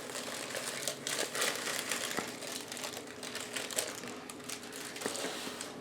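Cake-mix bag crinkling and crackling as the dry mix is shaken out of it into a measuring cup.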